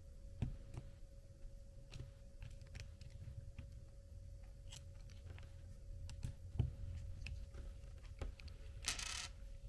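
Small clicks and taps of an RC wheel rim and beadlock ring being turned and fitted by hand while lining up the screw holes, with a brief rustle near the end over a faint steady hum.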